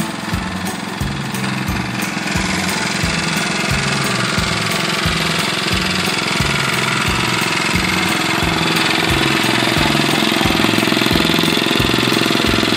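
David Bradley walk-behind garden tractor's small single-cylinder air-cooled engine running with a steady, even thumping beat. It grows louder a couple of seconds in and stays that way.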